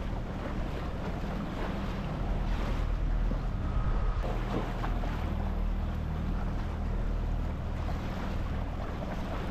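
Tour boat's motor running steadily as the boat moves, with wind buffeting the microphone and water washing along the hull.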